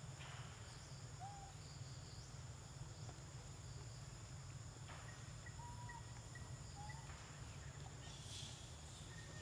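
Faint tropical forest ambience: a steady high insect drone with a few short bird chirps and a thin whistled note in the second half, over a low steady rumble.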